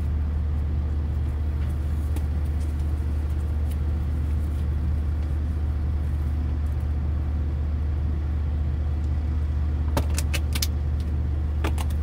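Steady, loud low drone of an engine running nearby. A few sharp clicks sound about ten seconds in and again near the end.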